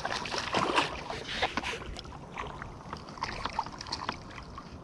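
Irregular water splashes and small knocks at the side of a kayak as a hooked snook is brought in, busiest in the first second or so and thinning out after.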